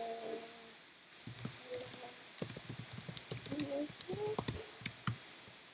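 Typing on a computer keyboard: quick runs of keystrokes in irregular bursts, starting about a second in and stopping near the end.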